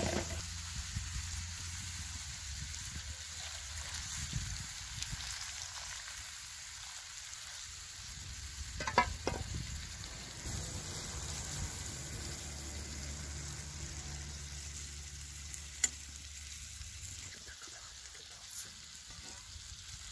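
Chicken and diced potatoes sizzling steadily on a hot iron sac griddle over a wood fire, for the Azerbaijani dish sacıçı. A spatula clinks against the pan about halfway through.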